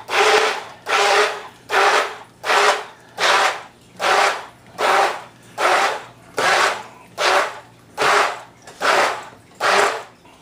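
Stick blender pureeing canned tomatoes, jalapeños, onion and cilantro into salsa, its churning noise surging and falling away in an even rhythm a little more than once a second.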